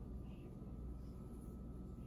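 Quiet room tone: a steady low hum with a faint steady whine above it, and no distinct events.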